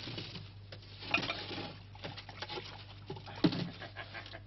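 Light clinks and knocks of bottles and drinking vessels being handled, over a steady low electrical hum.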